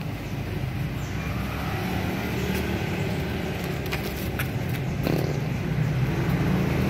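Low, steady engine hum that slowly grows louder, with a few short light clicks and taps over it.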